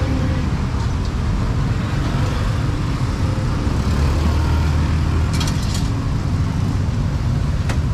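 Steady roadside traffic noise, with motorbike and car engines running by under an even hiss. A few short sharp clicks come a little past halfway, and one more near the end.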